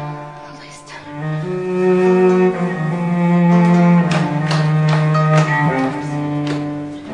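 Dramatic background score of low, held bowed-string notes that swell about a second in. In the second half, sharp accents fall roughly twice a second.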